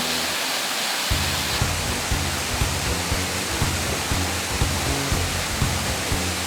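A waterfall's steady rush of falling water, with background music mixed over it. The music has a steady low beat about twice a second, which drops out briefly and comes back about a second in.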